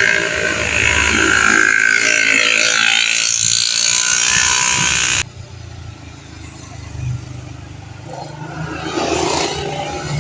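Loud road traffic noise from passing motor vehicles. It cuts off abruptly about five seconds in, then comes back quieter and builds again near the end as another vehicle approaches.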